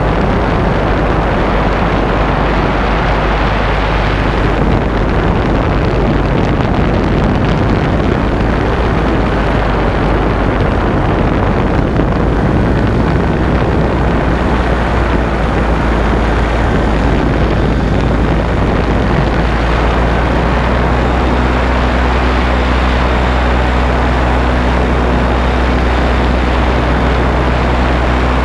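Paramotor engine and propeller running steadily in flight, a loud continuous drone. About twenty seconds in, a steady engine hum comes through more clearly.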